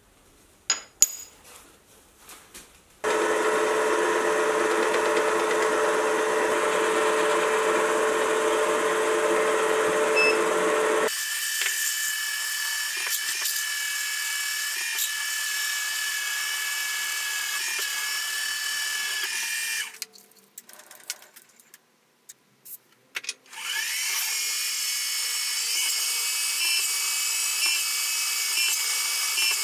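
Milling machine spindle running with a twist drill cutting into a metal bar, a steady mechanical sound with a held tone. It runs in separate stretches, its pitch changing after a cut about a third of the way in, with a short break filled with small clicks shortly after the middle.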